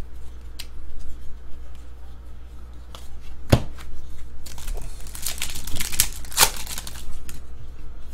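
A 2017 Topps WWE trading-card pack being torn open, its wrapper crinkling. A single sharp tap comes about three and a half seconds in, then a burst of tearing and crinkling from about four and a half to seven seconds.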